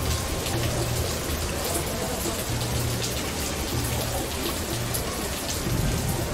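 Steady rain falling, layered with a low synthesizer drone whose tones come and go.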